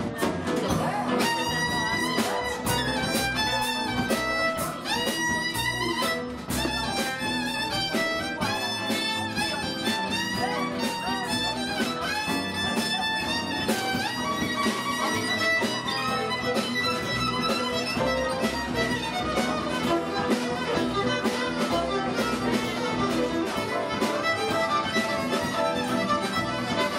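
Live Texas swing band playing an instrumental break, the fiddle carrying the melody with sliding notes over a steady rhythm of electric archtop guitar and upright bass.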